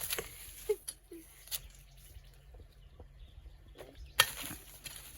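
Scattered short knocks and scuffs from handling and digging in the soil, with a sharper knock about four seconds in and a couple of brief voice sounds in the first second or so.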